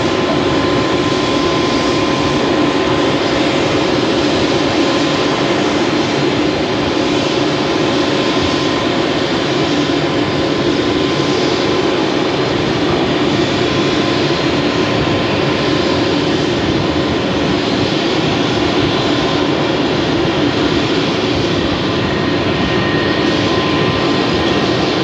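Airbus A320's jet engines at taxi idle: a steady rush with several thin, steady whining tones over it.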